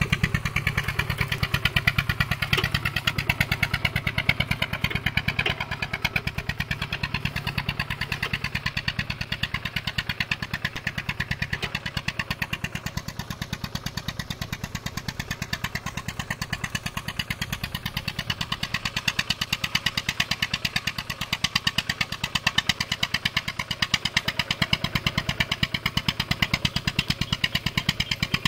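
Two-wheel walking tractor's single-cylinder engine running steadily with a fast, even beat, under load as it drags its cage wheels through flooded paddy mud.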